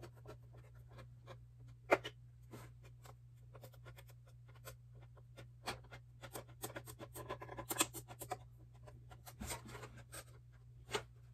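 RC body scissors cutting through a painted polycarbonate RC car body: a run of short, irregular snips and clicks, a few sharper ones standing out.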